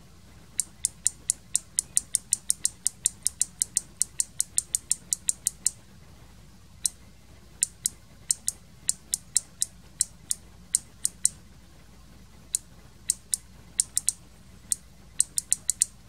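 A small snap-action microswitch from a microwave oven's door interlock, its actuator pressed and released by hand: a quick run of sharp, light clicks, about four to five a second for the first six seconds, then slower, uneven clicks. The switch has failed, with one contact burned, and its snap action does not always reset.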